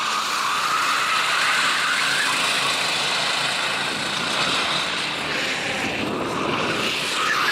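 Racing kart engines running on track, a steady high drone with a slightly wavering pitch.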